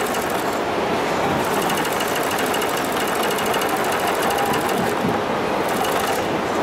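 81500CZ overedging sewing machine stitching a thick rope onto a net border, a rapid, even clatter of the needle and feed. It stops for a moment about half a second in and again about five seconds in, starting up again each time.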